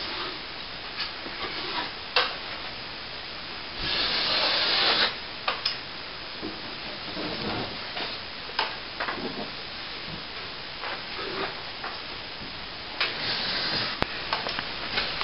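Steel plastering trowel scraping and smoothing wet plaster along an archway corner, with two longer, louder strokes about four and thirteen seconds in and short scrapes and taps between, over a steady hiss.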